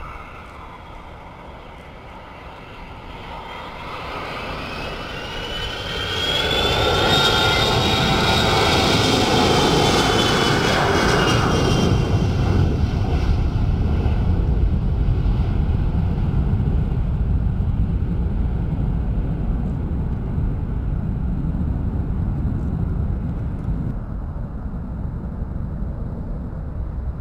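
Boeing E-3 Sentry AWACS jet's four turbofan engines at takeoff power as it rolls and lifts off. The sound builds over several seconds, and a high whine rises and then falls as the jet passes, followed by a steady low rumble as it climbs away.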